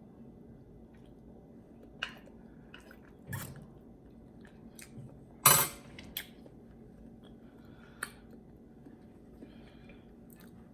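Eating at a table: a fork clinking against a plate a handful of times, one clink about halfway through louder than the rest, with quiet chewing between.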